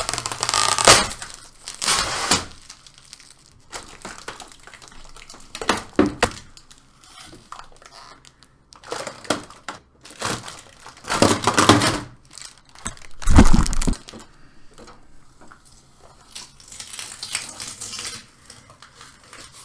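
Crumpling, crinkling and tearing of cardboard and duct pipes being pulled apart by hand, in irregular bursts with knocks, and one heavy thump about two-thirds of the way through, as a homemade portable air-conditioner enclosure is dismantled.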